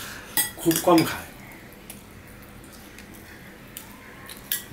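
A metal spoon clinking against plates and a glass serving bowl as rice is served, with sharp clinks in the first second and a few scattered ones later. A brief spoken remark comes about half a second to a second in.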